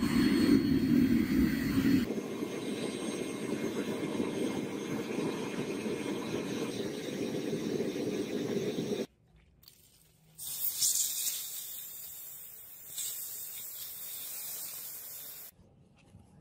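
A small gas-fired melting furnace's burner runs with a steady rushing noise, loudest for the first two seconds, and cuts off suddenly after about nine seconds. After a short gap comes about five seconds of high hiss, the sizzle of molten metal poured into a sand mould.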